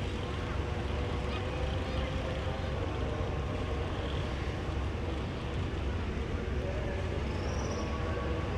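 Passenger ship's engines running with a steady low drone, with faint voices in the background.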